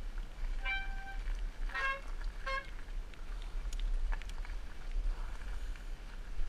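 Bicycle disc brakes squealing in three short, steady-pitched bursts, the first higher than the other two, typical of wet brakes. Underneath runs the steady low rumble of the fat-tyre ride over gravel, with a few sharp clicks about four seconds in.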